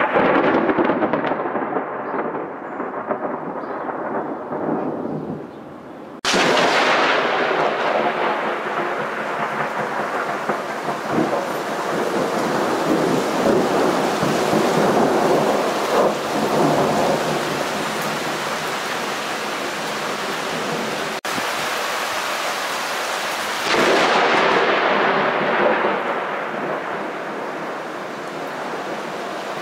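Thunder rolling in long peals, one running into the next. New loud peals break in suddenly about six seconds in and again about six seconds before the end, and each rumbles on and slowly fades.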